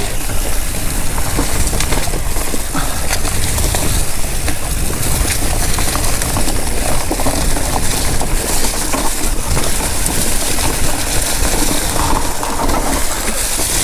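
Wind rushing over the camera microphone and knobby tyres rattling over dirt singletrack on an electric mountain bike at speed, a steady heavy rumble with many small knocks.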